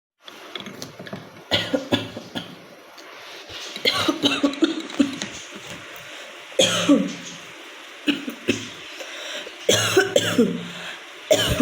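A woman coughing in about five separate fits, each a short run of harsh coughs, with brief pauses between. The cough is real, from a bad cold.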